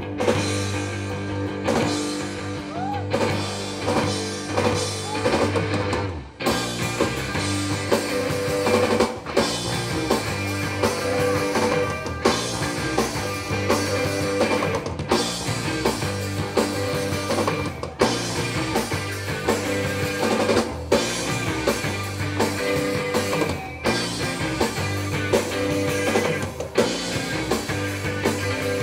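Rock band playing live: electric guitars, bass guitar and a drum kit, with steady drum hits. The band drops out briefly about six seconds in, then comes back in full.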